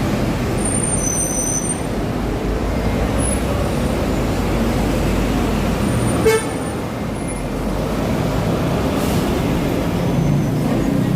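City road traffic with buses running as a steady rumble. A brief high squeal comes about a second in, and a single short horn toot about six seconds in.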